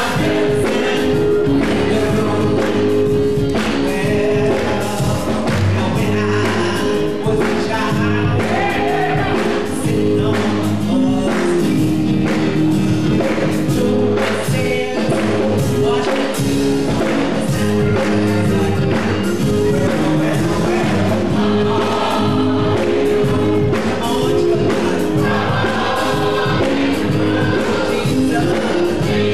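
Gospel choir singing together, backed by keyboard chords and a steady drum beat.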